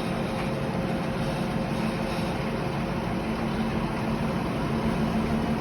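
Heavy machinery engine running steadily with a low, even hum, growing a little louder in the second half.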